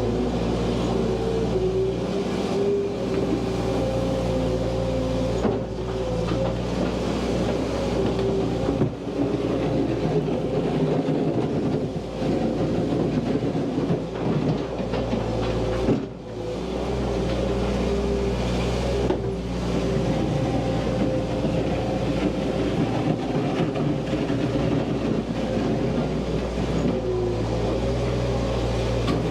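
Skid steer engine running steadily under changing load, its note dipping and recovering a few times, with a couple of sharp knocks from the machine working.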